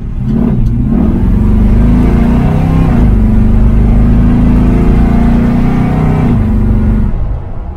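350 small-block Chevy V8, fed by an Edelbrock 650 cfm AVS2 four-barrel carburetor, accelerating from idle, heard from inside the truck's cab. It stumbles briefly off idle, the carburetor's lean spot, then pulls and revs up pretty good, holding high revs until the throttle eases about seven seconds in.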